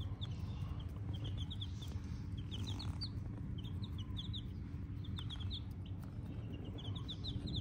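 Several four-day-old chicks peeping: short high chirps in quick runs of two to four, repeated throughout, over a low steady rumble.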